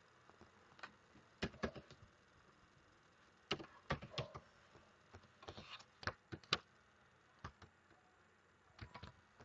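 Faint computer mouse clicks and keyboard keystrokes: about a dozen short, sharp clicks, scattered singly and in small clusters, as a value is typed into a dialog box and windows are switched.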